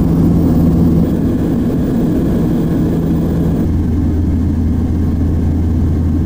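Cabin drone of an Antonov An-24's two Ivchenko AI-24 turboprop engines in cruise: a loud, steady low hum, its tone shifting slightly a little past halfway.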